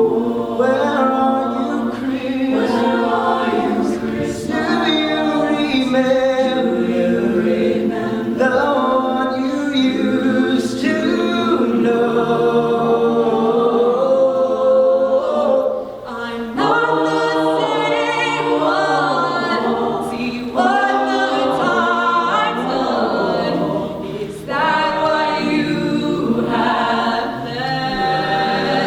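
Mixed high school madrigal choir singing a cappella, with several voice parts in harmony and brief breaths between phrases.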